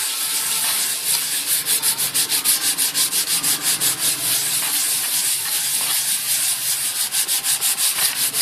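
Clothes iron's soleplate rubbing back and forth over transfer paper on a PCB, in quick even strokes about five a second, pressing the printed toner silkscreen onto the board with heat.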